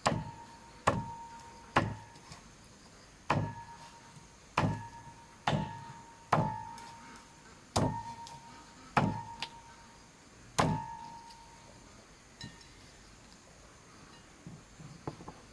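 Cleaver chopping down onto a wooden chopping block about ten times at an uneven pace, each blow a heavy thud with a brief metallic ring from the blade. This is typical of cutting a roast duck into pieces. The chopping stops about eleven seconds in.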